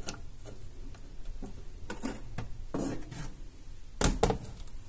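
Air fryer basket being pulled out of the fryer with light knocks and scrapes, then set down on a plastic cutting board with one loud clunk about four seconds in.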